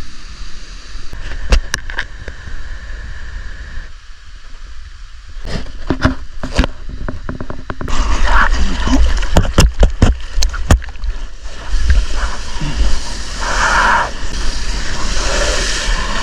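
Surf washing in, with scattered sharp taps on the microphone. From about eight seconds in it turns to loud water rushing and splashing close against a camera mounted on a longboard that is riding a wave.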